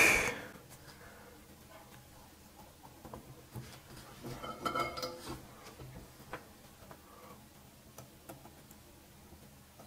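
Faint small clicks and light metal taps of desoldering work: a soldering iron and fingers handling fine wires held in a metal helping-hands clip. The taps gather in a short cluster about four to five seconds in.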